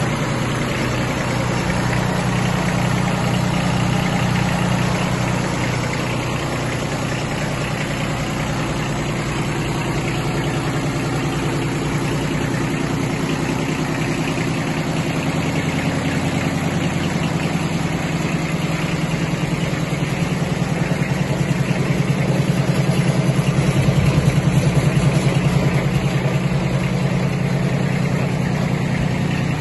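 Kubota B1702 mini tractor's three-cylinder, water-cooled diesel engine idling steadily, growing briefly louder a little past two-thirds of the way through.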